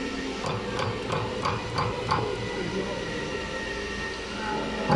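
PVC saliva-ejector hose extrusion line running: a steady machine hum, with sharp mechanical clicks about three times a second during the first two seconds.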